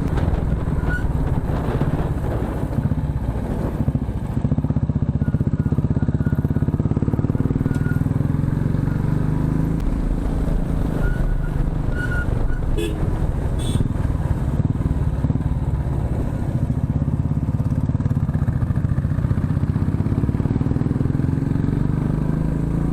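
Motorcycle engine running under load on a climb, its revs falling and rising again as it works through the bends. A few brief clicks sound about halfway through.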